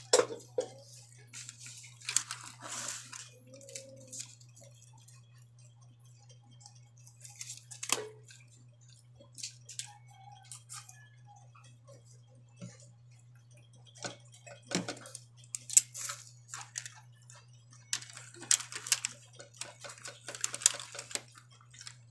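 Eating sounds: intermittent chewing and crunching with scattered clicks, over a steady low hum.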